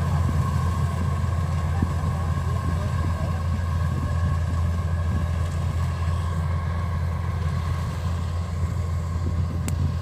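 Kubota DC93 rice combine harvester's diesel engine running steadily: a constant low drone with a steady whine from the machine above it.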